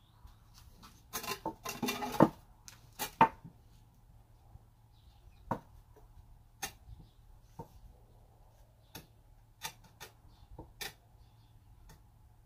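Wooden frame of pine boards being handled and shifted on concrete: a burst of knocks and scraping about a second in, with the loudest knock just after two seconds, then scattered light clicks and taps.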